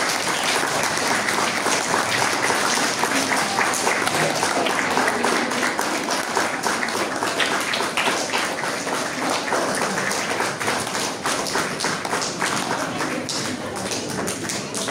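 Audience applauding, a dense patter of many hands clapping with crowd voices mixed in, easing a little near the end.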